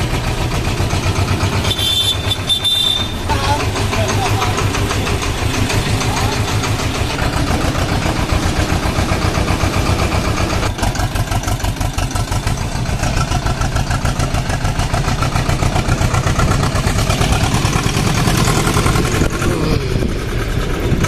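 Farm tractor's diesel engine running steadily under way, heard from on board, with a fast, even pulsing beat. A brief high-pitched tone sounds about two seconds in.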